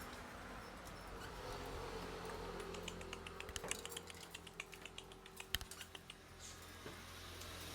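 Faint, irregular small clicks and taps, several a second, in the middle few seconds.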